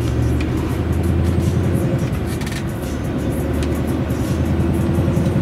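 Scania V8 520 truck's 16-litre V8 diesel engine running steadily as the truck drives at low speed, heard from inside the cab.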